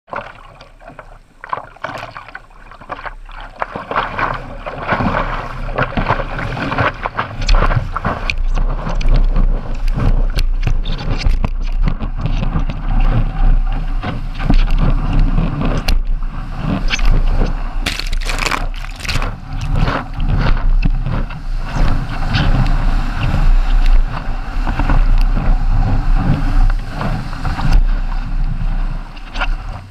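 Water rushing and splashing around a stand-up paddleboard as it rides a breaking wave, with a low rumble beneath. It is quieter at first while the board is paddled, and grows loud several seconds in.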